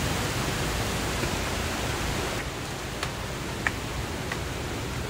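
Steady rushing of a water stream, dropping a little about halfway through, with a few light taps in the second half.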